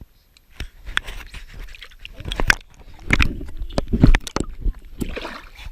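Close handling noise: an irregular run of knocks, clicks and scrapes, loudest about three to four seconds in.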